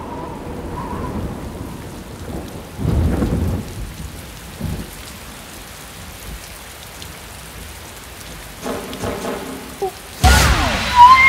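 Steady rain with thunder rumbling about three seconds in, and a loud, sudden crash of thunder near the end.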